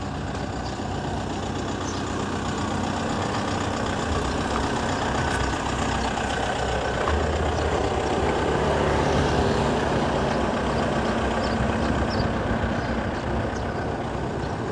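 Motor vehicle engine running, a steady low engine hum over street traffic noise, growing louder toward the middle and easing off a little near the end.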